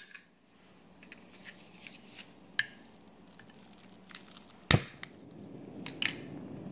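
A long utility lighter clicking as it is sparked to light the burner of a model Stirling engine, with three sharp clicks, the loudest about two-thirds of the way in. Once the flame catches, a low steady rushing sound builds.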